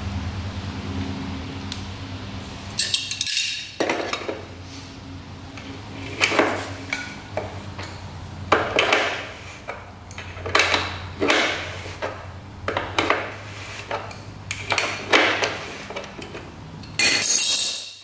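Metal tools and parts clinking and scraping in short repeated strokes, roughly one a second, over a steady low hum, with a louder burst of clatter near the end.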